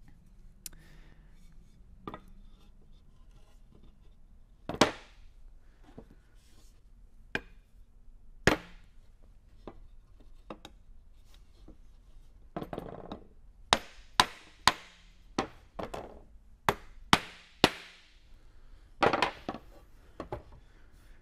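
Mallet knocking wooden cross pieces into the through-tenon joints of a hardwood chair frame. Single sharp knocks every second or two at first, then a quicker, irregular run of blows in the second half.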